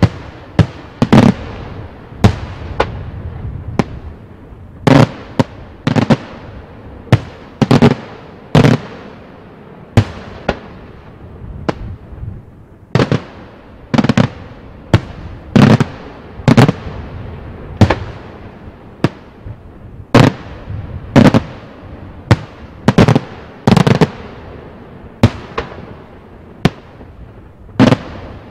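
Daytime fireworks: aerial shells bursting overhead in a steady series of sharp bangs, about one or two a second and sometimes in quick pairs, each trailing off in echo.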